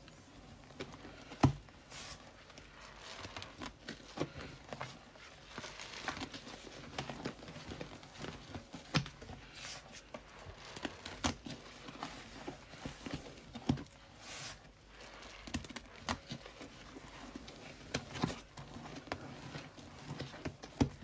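A sponge loaded with thick Soft Scrub cleanser paste being squeezed and scrubbed, giving irregular wet squelches and squishes, with one sharp knock about a second and a half in.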